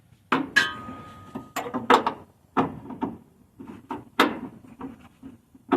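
Irregular metal clinks and knocks of a socket wrench working on a bolt of an exhaust bracket under a car, one clink ringing on briefly about half a second in.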